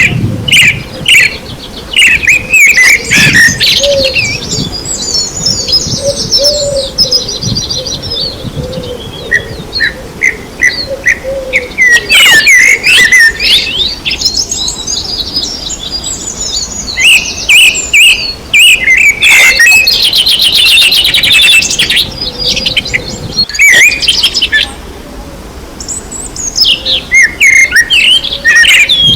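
Several songbirds chirping and singing at once, short chirps overlapping with fast, high trills.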